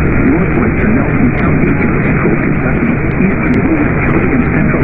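Radio reception thick with steady static hiss, with a voice faintly under the noise, too weak to make out: a poor, noisy signal.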